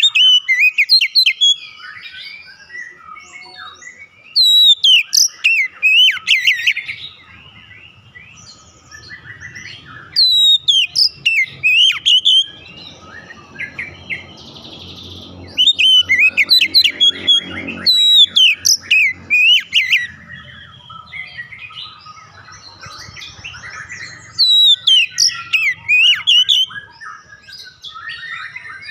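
Oriental magpie-robin (kacer) singing: loud bouts of rapid, varied whistled phrases with sharp rising and falling notes, broken by quieter chattering between bouts. This is the kind of song played to stimulate a caged magpie-robin to sing.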